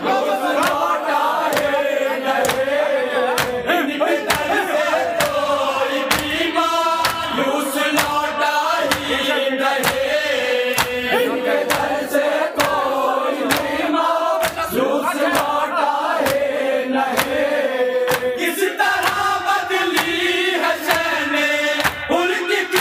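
A group of men chanting a salam, a Shia devotional lament, in unison, over a steady beat of hands striking chests in matam, about two strikes a second.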